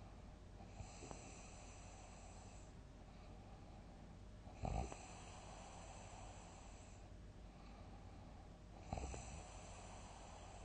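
A sleeping person snoring: loud, short snores about four seconds apart, one near the middle and one near the end, with a weaker one about a second in. Each breath also carries a faint, high hiss that lasts about two seconds.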